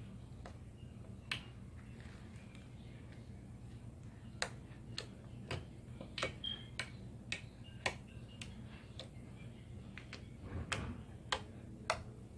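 Slime being poked and pressed with fingers, giving about a dozen sharp sticky clicks and little air pops at uneven intervals.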